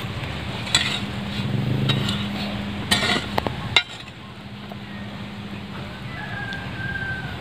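A hoe striking and scraping loose soil several times in the first four seconds, the loudest strikes about three seconds in. Near the end a rooster crows faintly.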